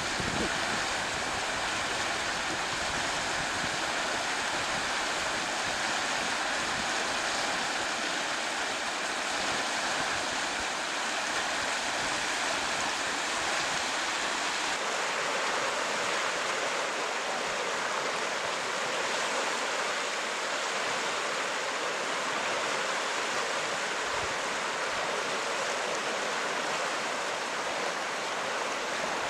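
Steady rushing noise of flowing water, most likely floodwater, running without a break.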